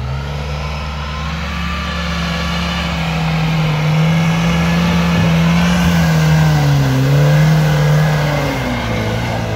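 Lada Niva's four-cylinder engine revving hard and held at high revs under load as it climbs a snowy slope, with a brief dip in revs about seven seconds in before it eases off near the end.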